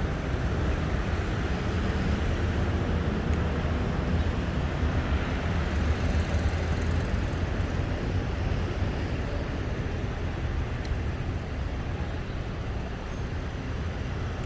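Steady low rumble and drone of a train, easing slightly near the end.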